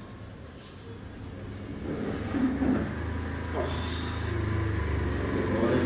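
A low, steady mechanical rumble that grows louder about two seconds in, with faint voices over it.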